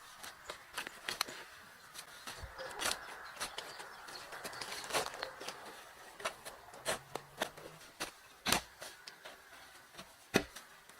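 Irregular knocks and taps, a few to several a second, with two louder knocks near the end.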